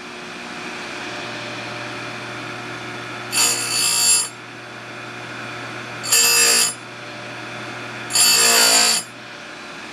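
Electric chainsaw-chain grinder running with a steady motor hum, its abrasive wheel touched to a saw-chain cutter tooth three times in short grinding bursts, each under a second. The tooth's sharp tip is being ground off a little at a time so as not to burn the tooth.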